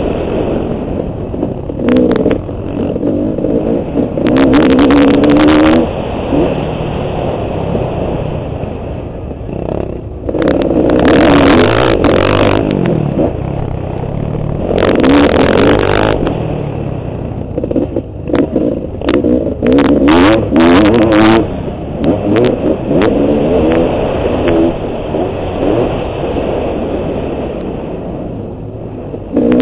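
Service Honda CR500AF's two-stroke engine being ridden hard: several bursts of full throttle a couple of seconds each, with lower off-throttle running and falling pitch in between.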